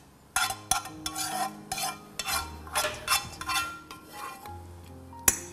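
A kitchen utensil scraping cooked onions out of a frying pan, a run of quick scrapes, then one sharp knock near the end.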